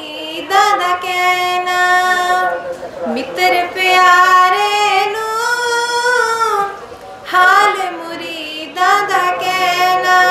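A young woman singing a Punjabi devotional verse in a slow melody. She holds long, slowly bending notes in four phrases, with short breaths between them.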